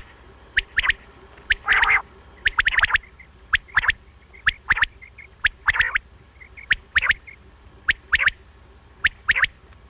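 Quail calling: short, sharp, high notes, mostly in quick pairs, repeated about once a second, with a longer, louder call about two seconds in.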